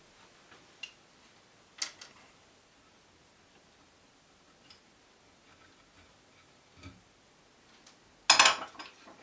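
Hand screwdriver backing old metal screws out of a wooden chair rail: a few faint clicks and ticks, one sharper click about two seconds in. Near the end comes a short, loud burst of handling noise.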